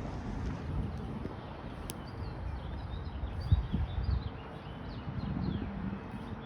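Small birds chirping, a run of short, high, falling notes starting about two seconds in. Under them is a low rumble of wind on the microphone, with a few louder gusts midway. A faint steady hum is also present.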